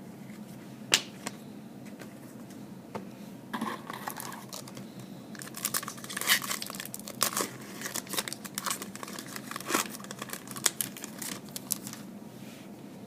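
Foil wrapper of a trading-card pack being crinkled and torn open: a sharp click about a second in, then a run of crackling and tearing from about three and a half seconds in until near the end.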